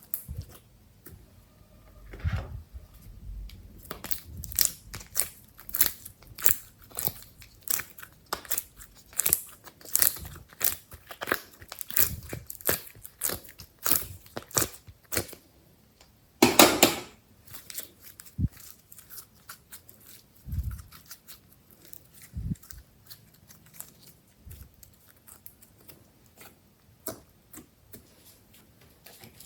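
Glossy slime squeezed and worked by hand close to the microphone, making rapid sticky clicks and small pops. There is a longer, louder burst about 16 seconds in, and the clicks thin out after it.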